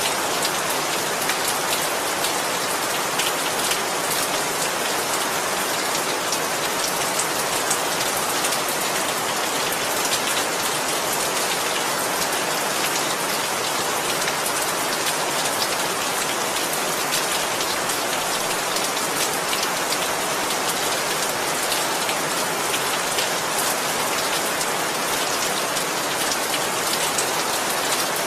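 Steady rain falling, with fine drop patter on surfaces and no thunder.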